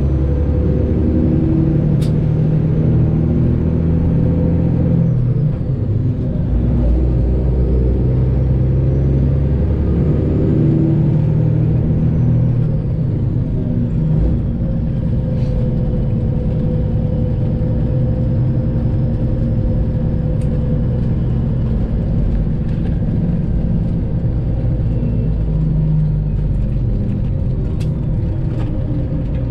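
Detroit Diesel 12.7-litre diesel engine of a Freightliner Classic XL semi truck running under way, a steady low engine note whose pitch changes a few times.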